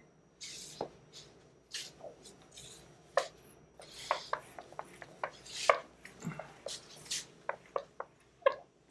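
Whiteboard eraser wiping marker ink off a whiteboard: a run of quick, irregular rubbing strokes mixed with sharp knocks and ticks as the eraser meets the board.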